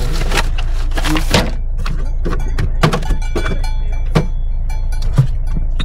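Camping gear being handled and packed: a string of separate knocks and clatters, some with a light rattle, over a steady low rumble.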